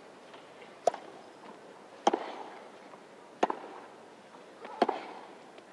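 Tennis ball struck by rackets in a baseline rally: four sharp hits, about one and a third seconds apart, over a low hiss.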